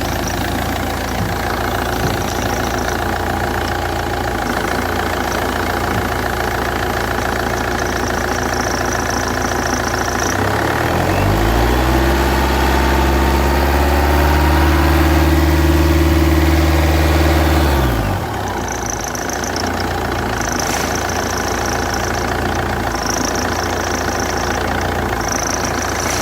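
Car engine idling with the noise of a failing alternator belt tensioner, then revved from about ten seconds in, held at higher speed for several seconds, and dropping back to idle near the end.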